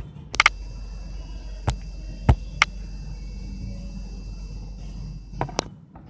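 Handling noise from a smartphone being held and pressed on a workbench: several sharp clicks and knocks over a steady low hum. There is a quick pair of clicks near the start, three single knocks in the first few seconds, and a final pair of clicks near the end, after which the hum stops.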